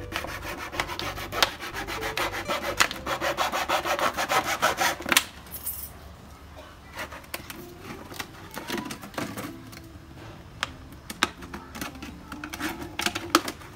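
Scissors cutting through a thin plastic water bottle: rapid scratchy crackling of the blades working through the plastic for about five seconds, then scattered snips, crinkles and sharp clicks.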